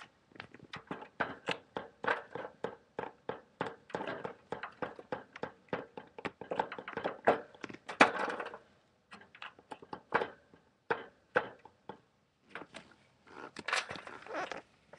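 Rapid, irregular clicking and crunching from a pet mouse's cage, a few sharp clicks a second, with two short pauses in the second half.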